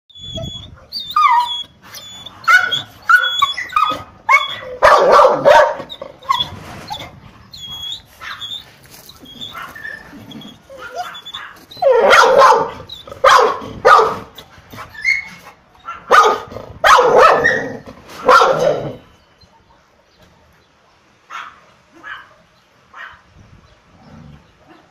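American Staffordshire terrier whining and barking: high whines in the first few seconds, then loud bouts of barking, after which only a few faint yips are left for the last few seconds.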